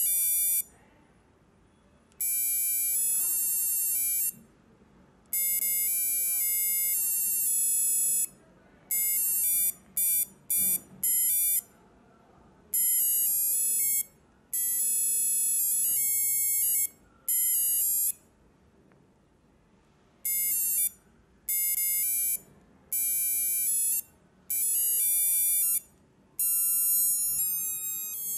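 A cheap LED digital alarm clock's built-in buzzer playing its electronic alarm tune: shrill beeping notes stepping up and down in pitch, in phrases of one to three seconds with short pauses between.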